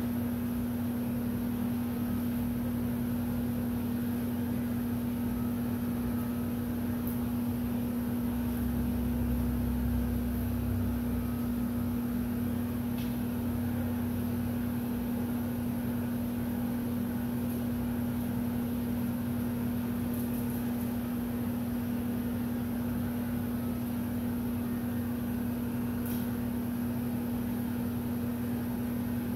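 Handheld heat gun running steadily, a constant fan hum with a hiss of hot air, as it heat-shrinks automotive window tint film onto glass. A few faint ticks sound over it.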